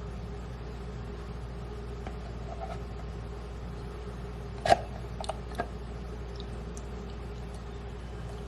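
Kitchen things being handled: one sharp knock about halfway through, followed by two lighter clicks, over a steady low room hum.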